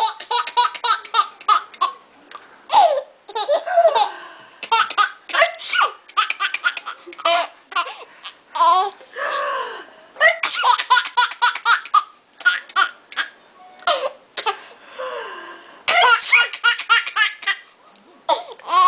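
An eleven-month-old baby laughing hard, in runs of short laughs with brief pauses between them.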